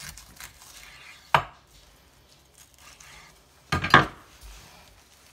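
Chef's knife chopping through a raw chicken onto a wooden cutting board: a sharp knock about a second and a half in, then a louder pair of knocks near four seconds, with faint knife and handling noises between.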